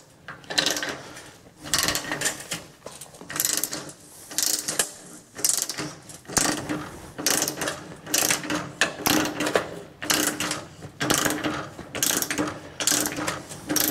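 Hand ratchet wrench clicking in short strokes, about one a second, as it turns the draw stud of a manual knockout punch. The punch is cutting a conduit knockout hole through the steel top of an electrical panel.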